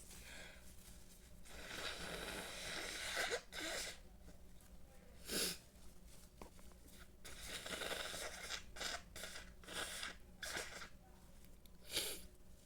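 A person sneezing: short, sharp sneezes about three, five and twelve seconds in, with long breathy inhalations building up between them.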